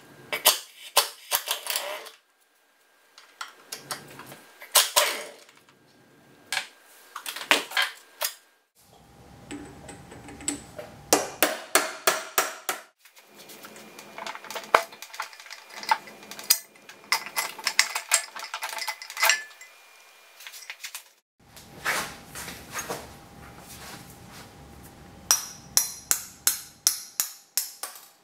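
Metal clicks, clinks and knocks of tools and steel parts being handled while a Borg-Warner T56 manual transmission is taken apart, with several runs of rapid clicking.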